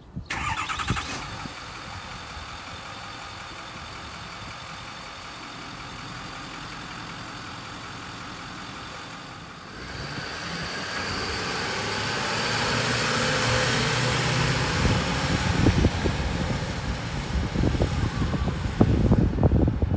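A diesel truck engine idling steadily. About halfway through, the sound changes to a louder rushing noise as the truck drives off down the street. Wind buffets the microphone with irregular low thumps near the end.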